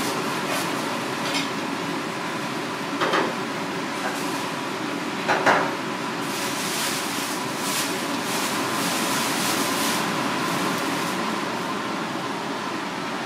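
Steady hiss and hum of a restaurant kitchen, with a pan of water boiling on a lit gas burner. Two short clanks come about three and five and a half seconds in.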